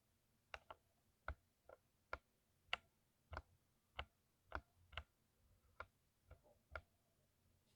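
Single keys on a mechanical keyboard with lubed switches being pressed one at a time: about a dozen short, soft clacks at an uneven pace, roughly one or two a second.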